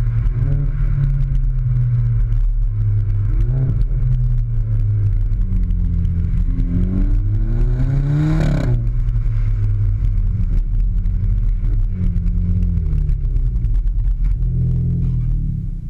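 Skoda Fabia vRS 1.4 TSI running through a Cobra cat-back exhaust with the centre silencer removed, accelerating through the DSG gears. The revs climb and drop at each upshift, and the loudest shift, about eight and a half seconds in, gives a short sharp 'fart' from the exhaust. The engine then runs at steadier revs.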